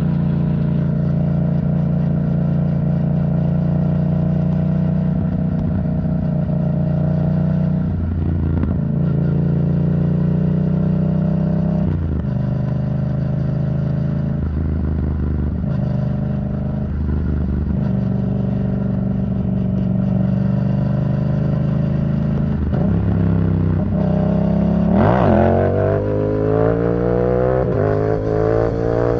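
Yamaha MT-07 parallel-twin engine running through an aftermarket Arrow Thunder titanium exhaust while riding. It holds a steady engine note with several brief changes in pitch and level. About 25 seconds in it accelerates, and the pitch rises steadily to the end.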